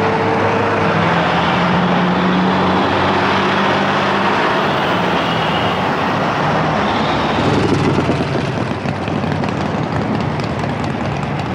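Busy road traffic passing at close range: pickups and a flatbed semi-truck going by, with steady engine drone and tyre noise. It gets louder for a moment about eight seconds in.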